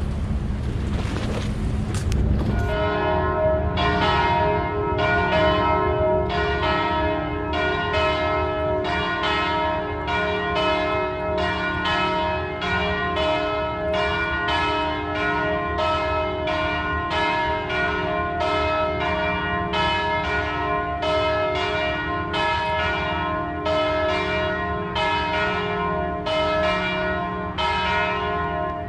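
Wind and water noise that gives way about two and a half seconds in to church bells ringing: a long, even run of strokes, each with a ringing overtone, about every 0.6 seconds.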